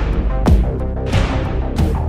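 Intro theme music with a steady, heavy beat: a hard hit about every two-thirds of a second over deep sustained bass.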